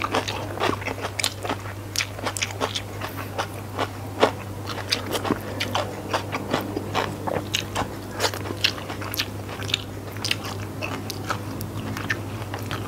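Close-miked chewing and finger-licking: a rapid run of wet mouth clicks and lip smacks as the last mouthful is eaten and sambal is sucked off the fingers, over a steady low hum.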